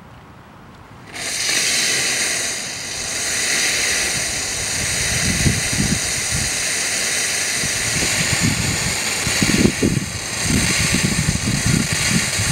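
The pumps of a homemade baking soda and vinegar liquid-fuel rocket switch on about a second in. Foamy propellant then hisses steadily out of a garden-hose sprayer nozzle. From about halfway the jet sputters with irregular low gurgles, spraying and dying because the nozzle is too small and pressure backs up and stalls the pumps.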